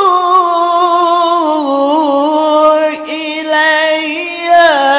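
A man's voice reciting the Qur'an in melodic qiro'ah style, holding long ornamented notes with slow wavering pitch, with a brief dip about three seconds in before the held note resumes.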